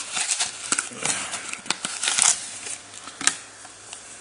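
Foil booster-pack wrapper crinkling and rustling as it is handled and opened, with a string of small crackles and ticks and one sharper tick about three seconds in.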